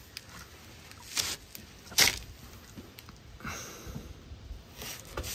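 Two sharp knocks about a second apart, the second the loudest, as a combination wrench on an oil-pan drain plug is smacked by hand to break the plug loose. Softer rustling and clicks follow. The plug was barely tight.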